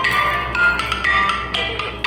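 Music: a quick melody of short, struck notes over a steady low bass.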